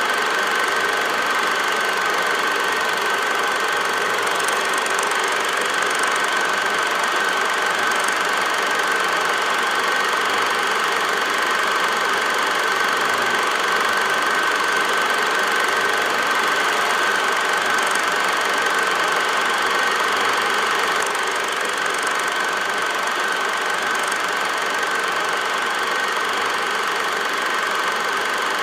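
8mm film projector running, a steady mechanical whir with a constant high whine.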